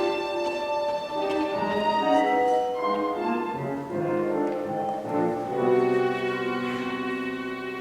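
Orchestra playing an instrumental passage from the opera's score, led by bowed strings: the notes move for the first five seconds or so, then settle into a long held chord.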